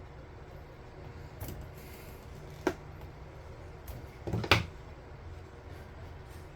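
A steady low hum with a few sharp clicks and knocks of handling: one click a little under three seconds in and a louder cluster of knocks around the middle.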